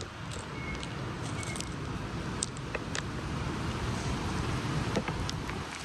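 Steady low background rumble, with a few faint clicks and taps.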